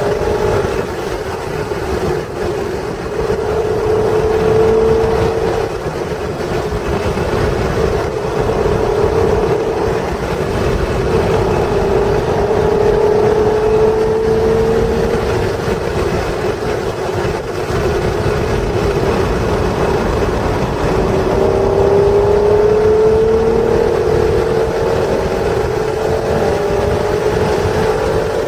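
Stock 3.0-litre V6 of a 1996 Acura NSX accelerating hard on track, its note climbing in pitch three times through the laps' straights and corners. A heavy rumble of wind and road noise runs underneath.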